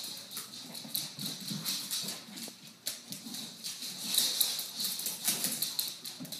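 Two small dogs running a chase across a hard floor, their claws clicking in quick, irregular ticks with light thuds of their feet.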